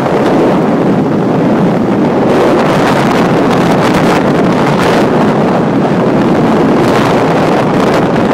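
Loud, steady wind rush on the microphone of a camera filming from a moving car, mixed with the car's road noise.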